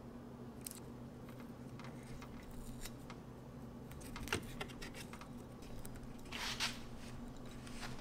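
Faint handling sounds of fingers working thin spliced wires and the plastic LED mirror-signal housing: scattered small clicks and a brief rustle about six and a half seconds in, over a faint steady hum.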